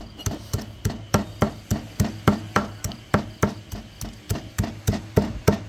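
A knife chopping rapidly and evenly on a cutting board, about four strikes a second, mincing pork and bony prahok (fermented fish paste) together.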